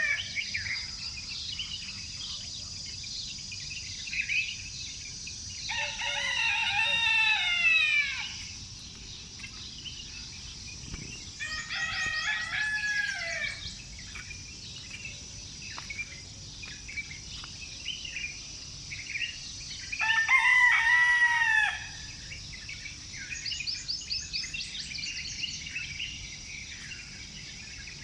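Rooster crowing three times, each crow a long call that falls away at the end, the loudest about twenty seconds in. Small birds chirp and trill between the crows.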